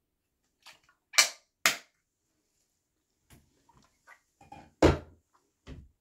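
Handling noise from the phone that is filming: a string of sharp knocks and bumps as it is picked up and moved. Two loud knocks come just after a second in, half a second apart, and another loud one comes near five seconds, with lighter taps between.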